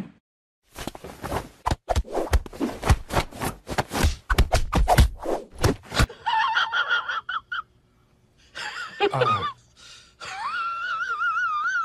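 A hand patting a cat's belly in a quick, irregular run of soft slaps. Then come several high, wavering calls that shake in pitch, and one call that slides down steeply.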